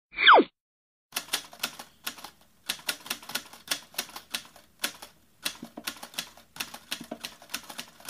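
A short falling swoop sound effect, then a rapid, uneven run of typewriter keystroke clicks lasting about seven seconds, broken by a few brief pauses.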